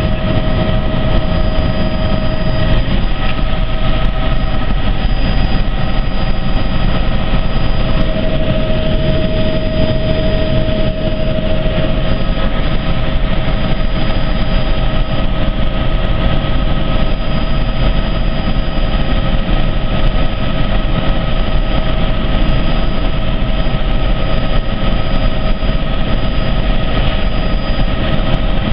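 Helicopter engine and rotors running steadily, a loud unbroken noise with several steady whining tones on top.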